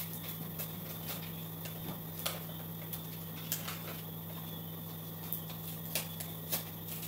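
Steady low hum under scattered light clicks and taps from paper cards and cups being handled at a table.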